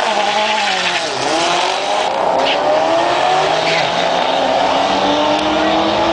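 A Mustang GT's V8 and a turbocharged Nissan 240SX launching side by side on a drag strip and accelerating hard under full throttle. The engine pitch climbs, drops once about a second in at a gear change, then climbs steadily again.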